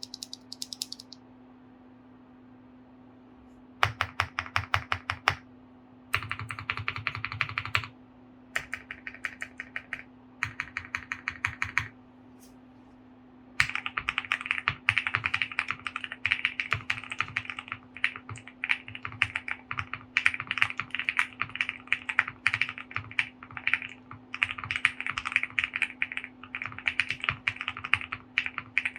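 QK65 mechanical keyboard with a POM plate, lubed Gazzew Boba LT switches and PBT keycaps being typed on: a few short runs of rapid keystrokes with pauses between them, then continuous fast typing from a little under halfway through. A faint steady hum sits underneath.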